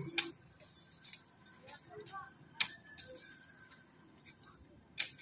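Bamboo strips being split and trimmed with a knife: three sharp cracks about two and a half seconds apart, with lighter ticks between them.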